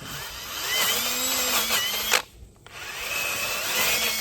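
Power drill spinning a Velcro-backed sanding pad against the curb-rashed edge of an alloy wheel, grinding the damage smooth. It runs in two bursts with a brief stop a little past halfway, the motor whine rising as it speeds up each time.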